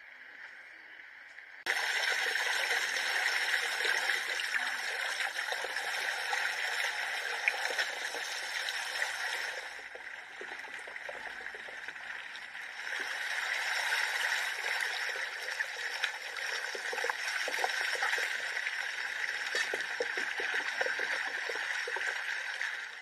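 Water gushing from a hose and splashing onto a stone surface as something is washed by hand. It is a steady rushing splash that starts suddenly about two seconds in, eases for a few seconds midway, and cuts off at the end.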